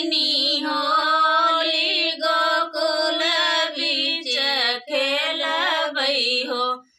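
Two women singing a phagua, a Holi folk song, with no instruments: long held, wavering notes broken by short breaths, with a pause just before the end.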